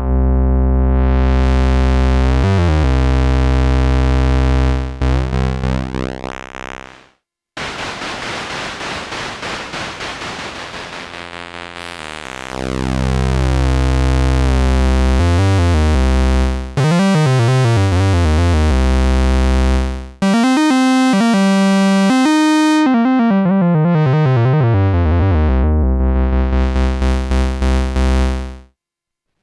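Moog Mother-32 analog synthesizer playing a run of separate patches: deep sustained bass tones with filter sweeps, a stretch of noisy texture, and notes that glide in pitch. The sound stops about a second before the end.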